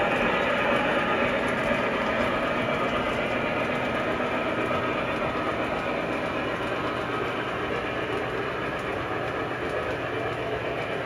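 O-gauge model passenger train running on three-rail track: a steady rumble of metal wheels on rails and motor hum, slowly getting fainter.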